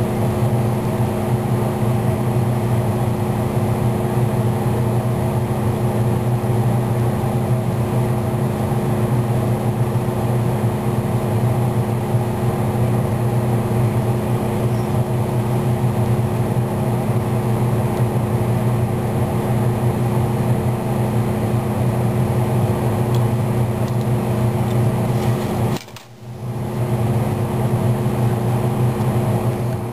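A steady, unchanging machine hum, like a fan or air conditioner running, broken once by a brief dropout near the end.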